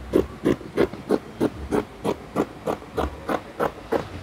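Dressmaking scissors cutting along a line through brown pattern paper in a steady series of snips, about three a second.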